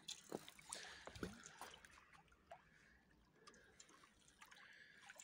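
Faint water sounds at a rocky shoreline: scattered small drips and light splashes, most of them in the first second or so.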